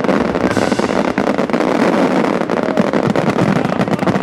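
Fireworks going off in a dense, rapid barrage: many sharp crackling bangs close together over a continuous rumble, with no gaps.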